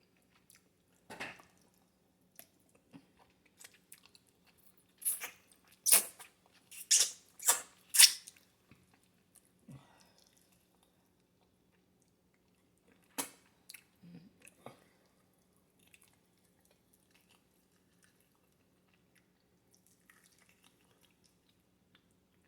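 Someone eating: a run of about five loud, crisp crunches between five and eight seconds in, another near the middle, and quieter chewing and small clicks between them. A faint steady low hum runs underneath.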